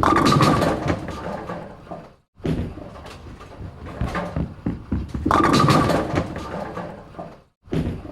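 Bowling ball rolling down a lane: a rumble with knocks, swelling louder twice. It stops dead twice, briefly, where one take ends and the next begins.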